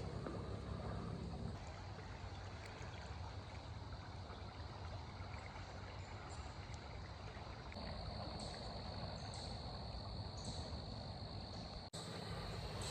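River water flowing steadily, a faint even rushing. A steady high chirring of crickets joins about eight seconds in.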